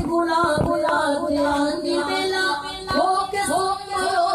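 A voice singing an Urdu naat, gliding between long held notes.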